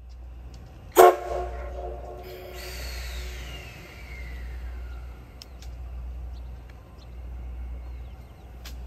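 Short, very loud blast of the C58 239 steam locomotive's whistle about a second in, followed by a hiss with a tone sliding down in pitch over a few seconds.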